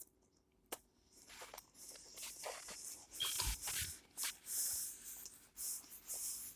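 Paper napkin rustling and crinkling in a run of short scrunches as hands are wiped with it, starting about a second in.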